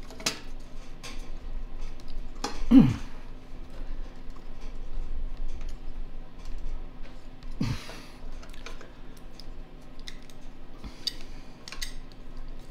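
Small clicks and rattles of a Tecumseh snowblower carburetor being twisted and worked off its fuel line by hand, with a brief vocal noise of effort about three seconds in and a faint steady hum underneath.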